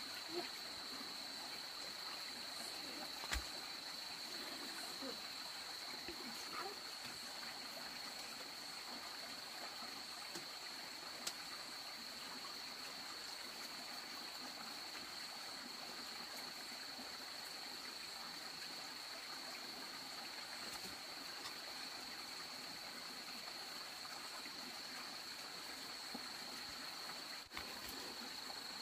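Steady forest ambience: insects droning on one constant high pitch over an even hiss, with a couple of faint knocks about three and eleven seconds in.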